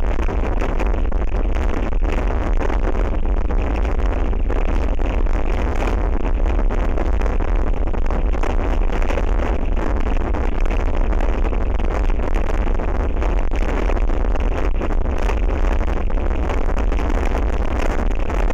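Strong wind blowing across an outdoor wildlife camera's microphone: a loud, steady rumbling rush with a deep low-end buffeting.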